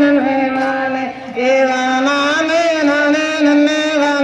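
Singing of a Tamil kummi folk song, held on long, drawn-out notes with a short break about a second in.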